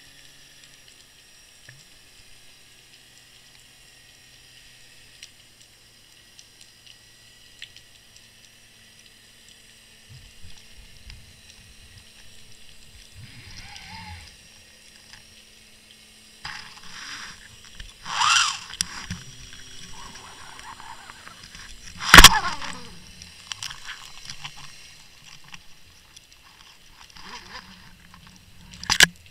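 Underwater sound picked up by a camera in its housing on the seabed: faint steady hum and water movement, with low rumbling and sloshing building up partway through. One sharp, very loud knock comes about two thirds of the way in, and another sharp knock near the end.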